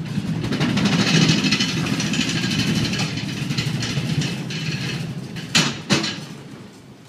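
Heavy crate on a wooden pallet rolling on small caster dollies over rubber floor matting: a steady rumble with a hissy rattle. Two sharp knocks in quick succession about five and a half seconds in, after which the rolling fades.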